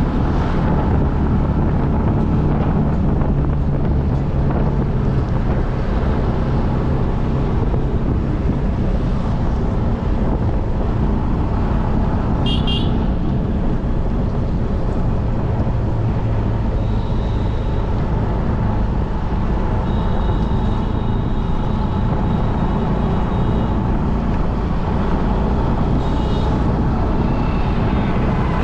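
Steady road-vehicle and traffic rumble picked up on an action camera's built-in microphone, with a few brief high-pitched tones about halfway through and in the last third.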